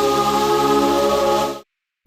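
Background music: a held synth or choir-like chord that fades out about a second and a half in, followed by silence.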